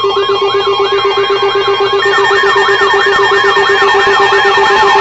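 Weather radio emergency alert alarm: a steady tone near 1 kHz under a rapidly pulsing lower beep and a siren-like sweep rising and falling about three times a second. About two seconds in, a second overlapping sweep and a higher steady tone join, making it louder.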